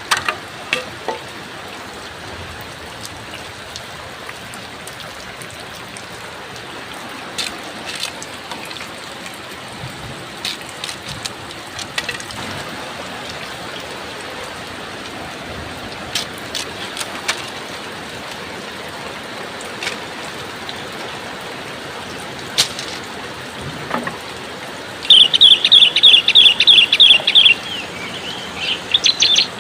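Steady rain hiss with scattered light knocks. Near the end a bird gives a rapid run of about a dozen high, chirping notes, the loudest sound here, followed by a shorter burst.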